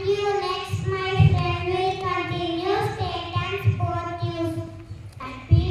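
A child singing a melody, holding long notes that slide from one pitch to the next.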